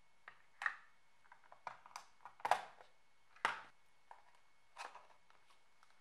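Hard plastic clicks and knocks, a dozen or so at irregular intervals, from the glued two-piece plastic case of a laptop AC adapter being pressed together and a spring clamp being fitted over it to hold the case shut. The loudest clacks come about two and a half and three and a half seconds in.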